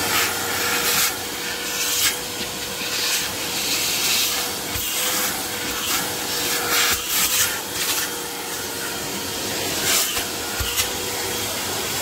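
Vacuum cleaner running with a steady motor whine and hiss as its nozzle is worked over a car's floor mat, with irregular brief louder rasping rushes as it scrapes the mat and sucks up dirt.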